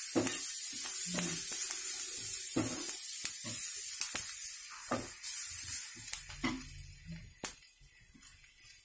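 Chopped onions and garlic sizzling in oil in a non-stick frying pan while a spatula stirs them, with scattered light knocks of the spatula on the pan. The sizzle fades away after about six seconds.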